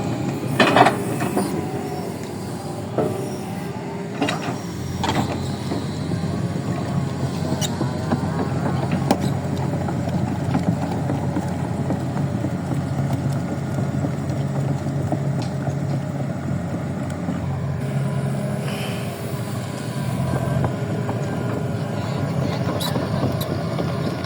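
Excavator running steadily with a low engine-like hum, with a few knocks and clanks in the first few seconds.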